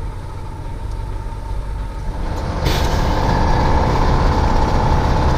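KAMAZ truck's diesel engine running with a steady rumble. About two and a half seconds in, a sudden hiss breaks in, and after it the running is louder and stays so.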